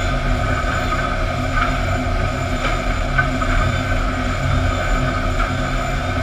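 Sawmill lumber-line machinery running steadily: the low rumble and hum of motors and chain conveyors moving boards, with a few faint knocks of wood about halfway through.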